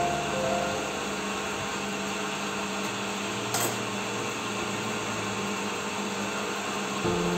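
Wood lathe running steadily with no tool cutting, a low motor hum. A single brief click about three and a half seconds in.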